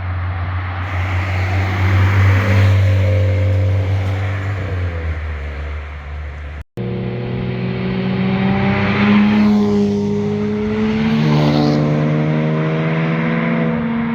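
Sports car engines and exhausts passing under load, one car after another. The first holds a steady low note that swells and then drops. After an abrupt cut about seven seconds in, the second engine's pitch climbs, dips briefly and climbs again.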